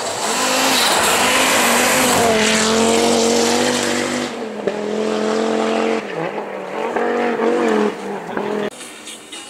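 Historic rally car passing at speed on a snowy stage road: a loud rush of engine and tyres as it goes by, then its engine note fading as it drives away, the revs rising and dropping several times.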